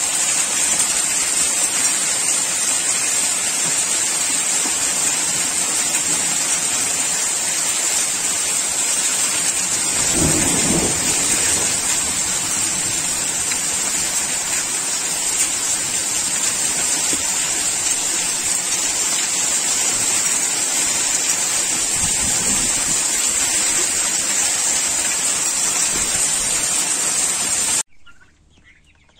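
Heavy rain and hail pelting paving stones in a violent thunderstorm, a dense steady hiss, with a low rumble of thunder about ten seconds in and fainter ones later. The storm sound cuts off abruptly near the end.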